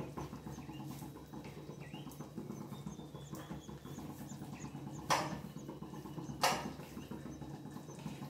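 Raw chicken pieces dropped into a pressure cooker of masala, landing with two sharp hits about a second and a half apart, over a steady low hum.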